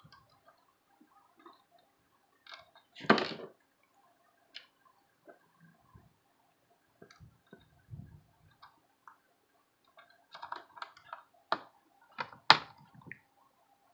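Small screwdriver driving screws into a laptop's plastic screen bezel: scattered faint clicks and scrapes, a louder knock about three seconds in, and a run of sharp clicks near the end.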